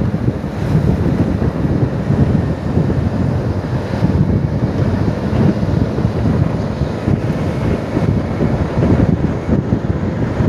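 Wind buffeting the microphone of a moving vehicle, a dense, steady low rumble with road noise underneath.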